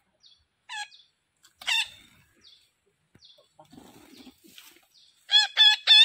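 Red-breasted parakeets giving short, harsh squawking calls: single calls about a second and two seconds in, then a quick run of three loud calls near the end.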